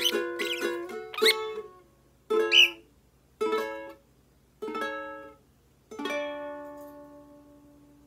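Ukulele strummed quickly, with short rising bird chirps over it for the first second or so. Then come four single strummed chords about a second apart, the last left ringing and fading out as the song ends.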